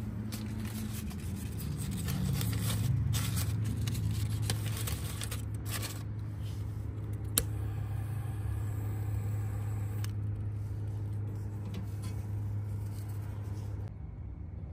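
Rustling and scraping of paper and cardboard being handled and stuffed into a small wood stove to light it, with a sharp click about seven seconds in, over a steady low hum.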